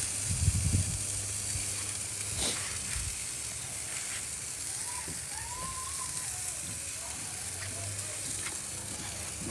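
Meat and seafood sizzling steadily on a barbecue, with a few small pops.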